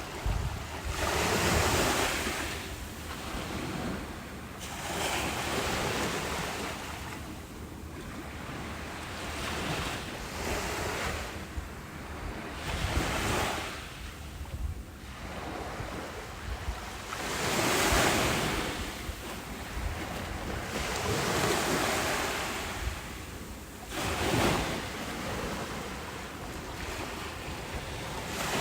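Ocean surf breaking on a beach, swelling and falling away every three to five seconds.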